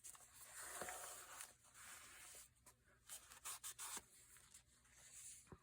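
Faint rustling and scraping of paper being handled, with a few light taps.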